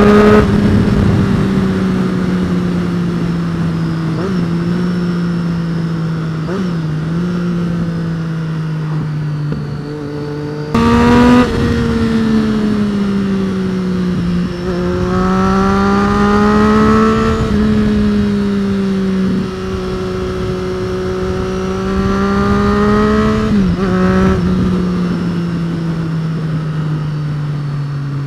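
2013 Triumph Street Triple R's 675 cc three-cylinder engine running on the move, its note rising and falling with the throttle. There is a sudden louder burst of revs about eleven seconds in and a few drops in pitch later, over a constant low rush of wind noise.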